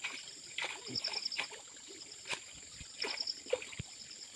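Stream water splashing and sloshing as a hand scoop net is worked through it by a wader. Twice, a quick high chirping trill of about six notes sounds in the background.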